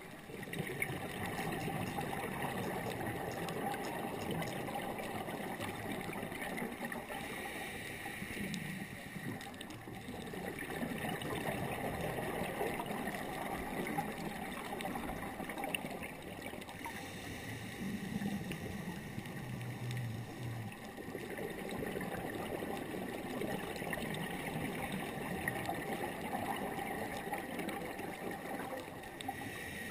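Steady, muffled underwater noise picked up by a camera in a housing on a scuba dive: a continuous watery hiss and rumble.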